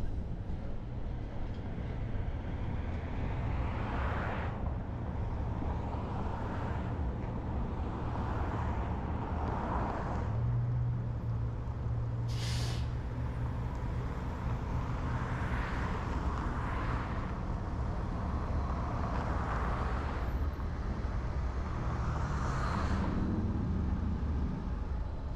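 Road and traffic noise from a car driving through city streets: a steady low rumble, with other vehicles swelling past every few seconds. A short, sharp hiss comes about twelve seconds in.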